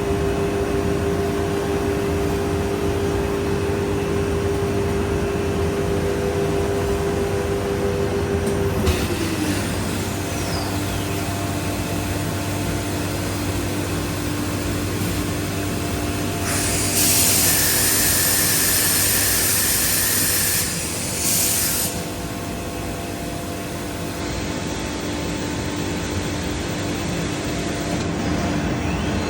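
Biesse Rover K CNC router running, with a steady machine hum and a steady spindle tone whose pitch slides down about nine seconds in. A loud hiss starts about halfway through and stops abruptly about five seconds later.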